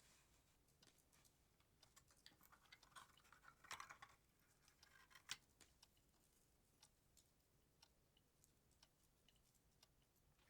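Faint, irregular small clicks and light rustling of Christmas tree ornaments being handled. There is a brief rustle about three to four seconds in and a sharp click a little after five seconds.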